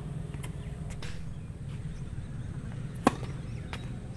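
Tennis ball impacts: a few faint knocks, then one loud, sharp pop about three seconds in, over a steady low rumble.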